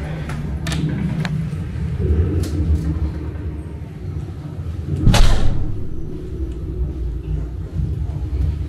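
Steady low rumble with a few light knocks, and one loud boom about five seconds in that dies away over a second or so: battle sound effects playing in a trench-warfare exhibit.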